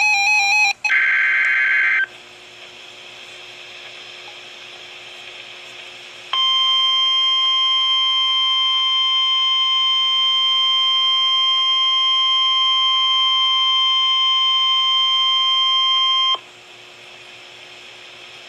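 NOAA Weather Radio Required Weekly Test received on a weather radio. The last EAS/SAME digital header burst, a rapid warbling data screech, ends about two seconds in. After a few seconds of faint radio hiss, the 1050 Hz warning alarm tone sounds as one steady, loud beep for about ten seconds and cuts off suddenly, leaving hiss.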